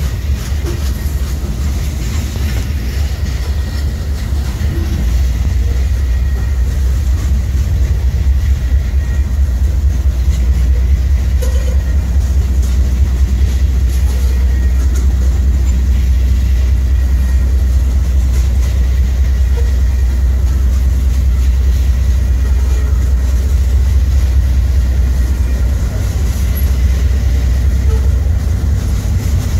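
Covered hopper cars of a long freight train rolling past, a steady low rumble with faint wheel clatter.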